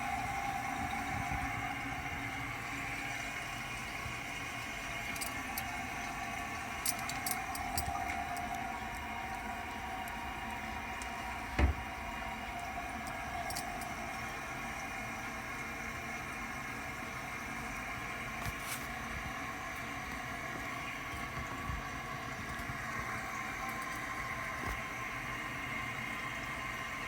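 Toilet cistern refilling after a flush: a steady rush of water through the fill valve with a whistling tone. A single sharp knock sounds about twelve seconds in.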